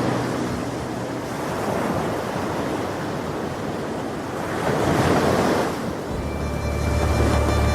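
Ocean surf washing, with a wave swelling and breaking about five seconds in. Music with a steady low bass comes in about six seconds in.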